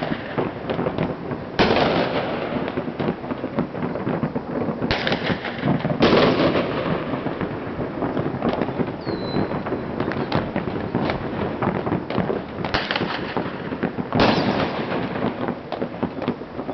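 Many fireworks and firecrackers going off at once across the city: a dense, unbroken crackle of sharp bangs, with louder booms a few seconds apart. A brief high falling whistle about nine seconds in.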